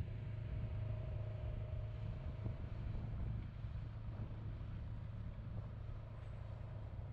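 Car driving at a steady speed: a continuous low engine hum and road noise.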